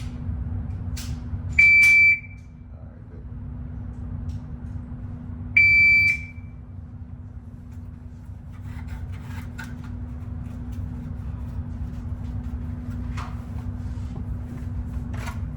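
PACT shot timer sounding its start beep twice, each a steady high beep about half a second long, some four seconds apart, over a steady low hum.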